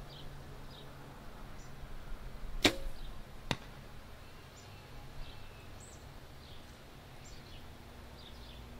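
A 60-pound Mathews compound bow shooting: a sharp snap of the string on release, the loudest sound, a little under a third of the way in, then a second, fainter crack under a second later as the arrow pops the balloon and strikes the target 50 yards off.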